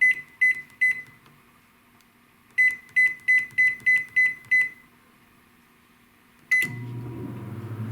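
Panasonic NN-SN67HS inverter microwave's keypad beeping as it is set: three quick beeps, a pause, then a run of about seven. About six and a half seconds in there is a click and a short beep, and the oven starts running with a steady hum.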